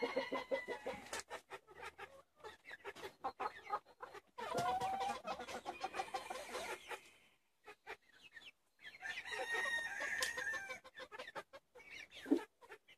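Bantam chickens clucking in a coop, with many short clicks and scratches, and two long rooster crows, one about four seconds in and another about nine seconds in.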